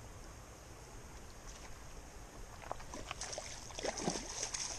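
Creek water running softly, then from about three seconds in, irregular splashing and sloshing as a hooked trout is pulled in through the shallows.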